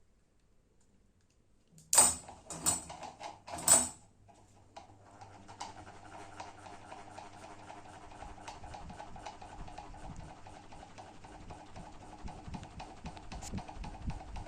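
Three sharp clicks about two seconds in. Then the GMC FC-06-90 mini ceiling fan's motor starts up, its hum building gradually with light ticking over it.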